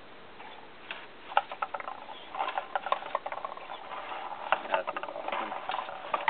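Marble-sorting machine built from VEX parts running: its servo-driven gate and turning cup carousel click and rattle as glass, acrylic, wood and steel marbles drop through into the cups. The clatter is rapid and irregular and starts about a second in.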